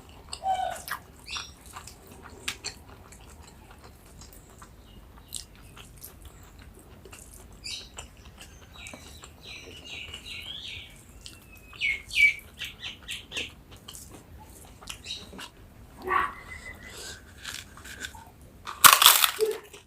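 Close-up sounds of a person chewing and biting crisp food, with repeated small crunches and clicks and one loud crunchy bite near the end. Short high chirps, like a bird, come in around the middle.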